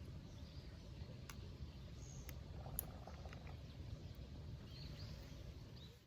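Outdoor ambience: a low steady rumble with faint, high, short bird chirps near the start and again toward the end, and a few light clicks in the middle. It cuts off abruptly at the end.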